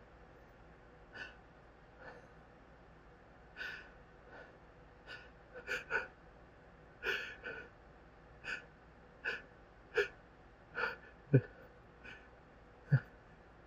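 A man's repeated short, sharp gasping intakes of breath, about one a second. They are the hitches of a sneeze that is building but stuck. They grow louder toward the end.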